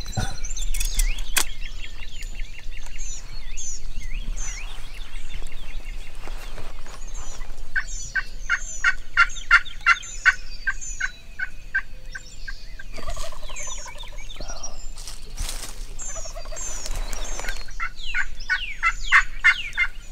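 Wild turkey gobbler gobbling from the roost in two bouts of rapid rattling gobbles, about eight seconds in and again near the end. High chirps of songbirds run throughout.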